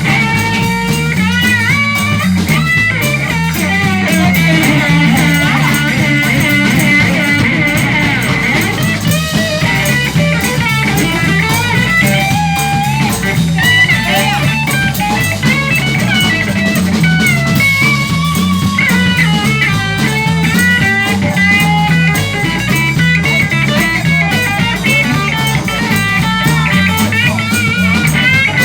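Live blues band playing an instrumental break: a lead guitar solo with bent, gliding notes over a repeating bass line and drums.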